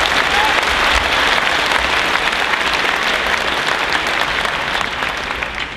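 Audience applauding, many hands clapping, easing off near the end.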